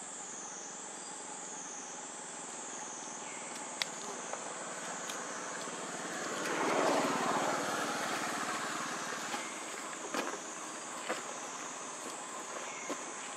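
Outdoor ambience: a steady high-pitched insect drone that wavers up and down in a slow regular pulse, with a broad rushing noise swelling and fading about six to nine seconds in. A few short sharp clicks sound now and then.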